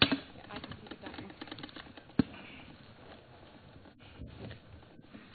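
Scattered clicks and knocks with light rustling as people move and settle into their seats, with a sharp knock about two seconds in.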